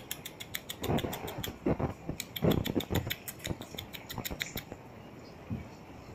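Shih tzu dogs' claws clicking rapidly on a tile floor as they scamper and wrestle, with duller thuds from the scuffle. The clicking stops about three-quarters of the way through.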